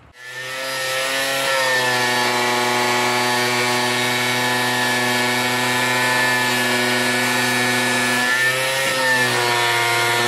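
Angle grinder fitted with a toothed wood-cutting blade, spinning up and then running steadily as it cuts through a plywood board. Its motor whine dips slightly in pitch about a second and a half in and again near the end.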